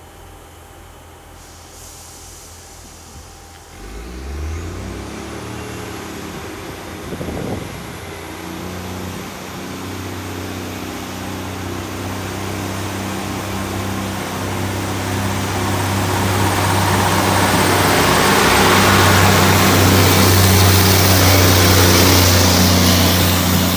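Diesel train powering up and running past, its engine note stepping up about four seconds in, with a rising high whine. The rumble and rail noise grow steadily louder to a peak near the end.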